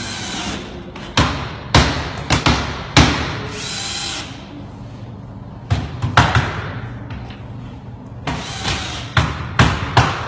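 A claw hammer striking something hard on a box, about a dozen sharp blows in three uneven bursts.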